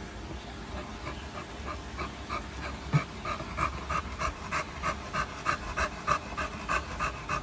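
Bulldog panting hard with its mouth open, a steady rhythm of about three breaths a second.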